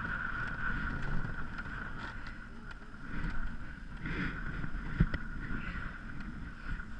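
Ice canoe under way: wind on the microphone with scattered knocks, the sharpest about five seconds in, over a steady high-pitched whine.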